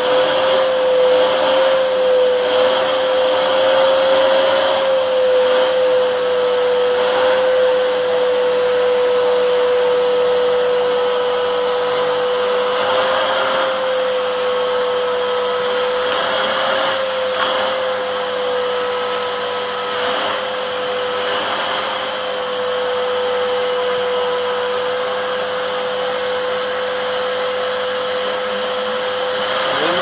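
Vacuum cleaner running steadily: a constant mid-pitched hum over rushing air, its nozzle working over a kitten's fur.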